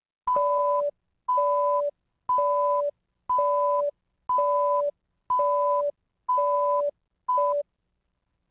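Countdown leader beeps: eight two-note electronic beeps, one a second, each a higher tone stepping down to a lower one; the last beep is cut short.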